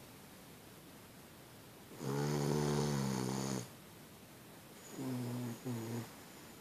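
Boston Terrier snoring in its sleep: one long, pitched snore about two seconds in, then two short snores close together near the end.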